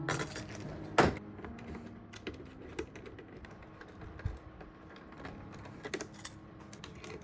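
Irregular small clicks and taps of hard PC components being handled and fitted together, with one sharp knock about a second in.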